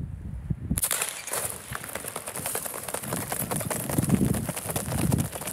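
A group of sprinters in spiked track shoes driving out of the starting blocks and running on a synthetic track: from about a second in, a rapid, dense patter of many footfalls striking the surface.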